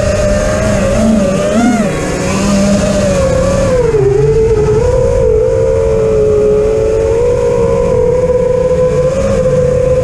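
FPV quadcopter's motors and propellers whining, heard through the onboard camera's microphone. The pitch wavers with the throttle, falls about four seconds in, then holds fairly steady.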